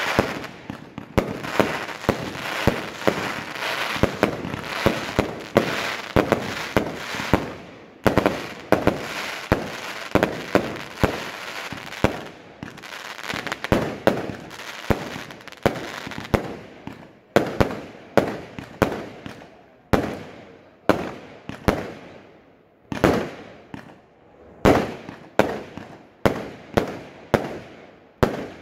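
Fireworks display with aerial shells bursting in quick succession and crackling. About halfway through the bursts thin out to single bangs roughly a second apart, each dying away after the hit.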